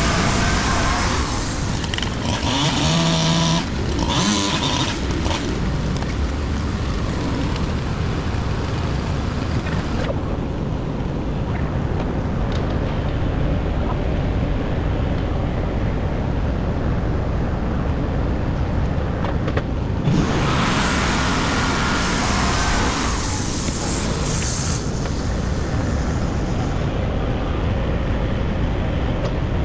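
The WoodMizer LT35 portable band sawmill's engine runs steadily under load while the band blade cuts lengthwise through a long hemlock log. A higher-pitched layer comes and goes in the first few seconds and again about twenty seconds in.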